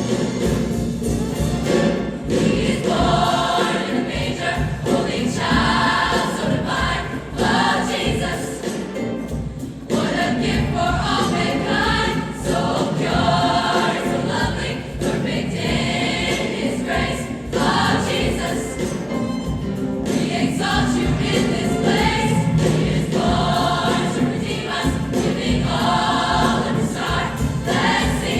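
Choir singing a holiday song with instrumental accompaniment.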